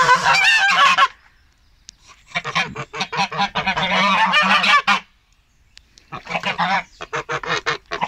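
Domestic goose honking in three long runs of rapid, wavering calls, with short quiet gaps between them.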